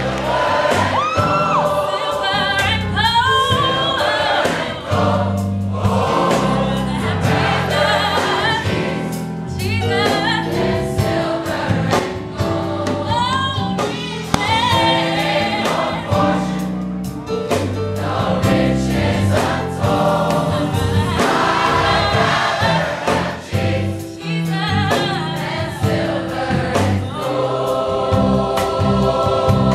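Gospel choir singing in full harmony, with a female soloist on a microphone singing bending, ornamented lines over the held choir chords.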